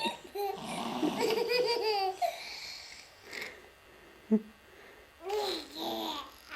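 A girl laughing hard in a high voice, one long fit of laughter over the first two seconds and another burst near the end, with a single sharp click in the quieter stretch between.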